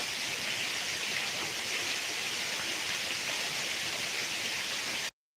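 Heavy rain falling, a steady dense hiss that cuts off suddenly near the end.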